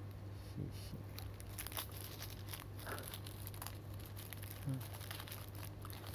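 Plastic packaging crinkling and crackling as the package contents are handled, in many short irregular crackles over a steady low hum.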